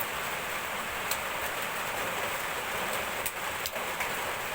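Steady rain falling, an even hiss, with a few sharp clicks about a second in and again past three seconds.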